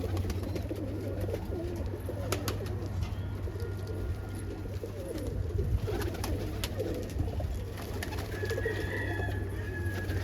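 A flock of domestic pigeons cooing together in a loft, a dense overlapping warble, with scattered sharp clicks and knocks.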